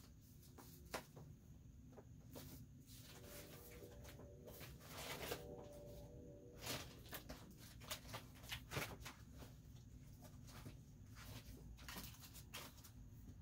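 Faint, scattered rustling and light clicks of craft supplies being handled while someone searches for an item, with a faint steady tone about four to six seconds in.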